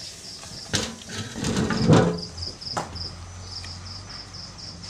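An insect chirps steadily in the background in a fast, even rhythm of high chirps. Over it come a few sharp knocks and a louder clattering scrape as the pounded papaya salad is tipped out of the mortar onto a steel tray.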